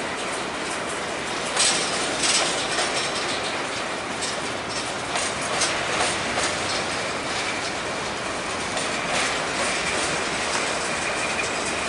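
Empty covered hopper cars of a freight train rolling past, a steady rumble of steel wheels on rail with irregular clicks and clanks as the wheels cross joints. A faint high wheel squeal comes in near the end.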